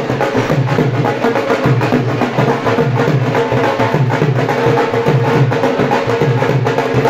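Dhol drum beaten in a steady, driving rhythm for dancing.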